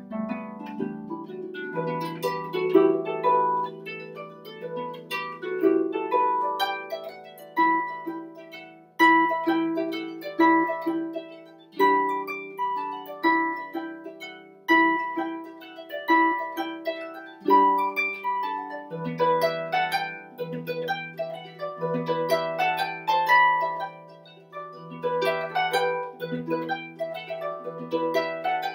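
Concert pedal harp with 47 strings playing an Irish folk tune: a plucked melody over low bass notes that ring on.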